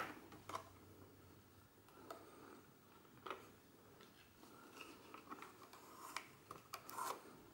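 Faint handling noise from a Super 8 movie camera being turned in the hands and its strap moved about. There are scattered soft clicks and small knocks over a quiet room, with a few close together near the end.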